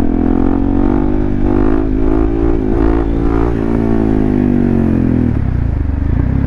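Motorcycle engine pulling hard under acceleration, its pitch climbing a little and then easing down. The throttle is closed about five seconds in and the engine drops to a lower, rougher note.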